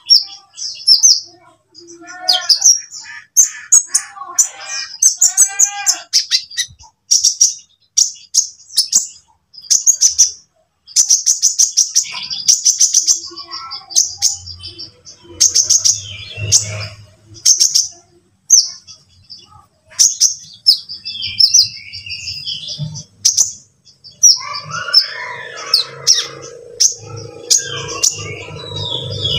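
Sunbird (konin) singing: long, rapid runs of short, sharp, high chirps, with some lower, arched warbling notes in the first few seconds. A low hum sits underneath for a few seconds around the middle and again through the last few seconds.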